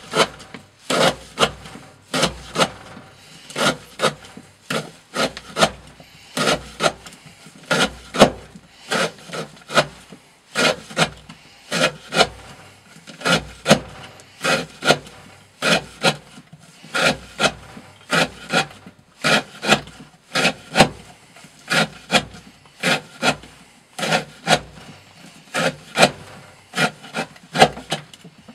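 Custom S35VN steel hunting knife shaving curls off a block of wood, one short scraping cut after another, about one and a half strokes a second.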